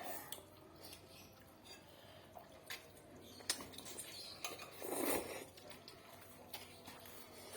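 Eating sounds from a bowl of instant noodles: light clicks and clinks of utensils against the bowl, with a louder, longer burst about five seconds in.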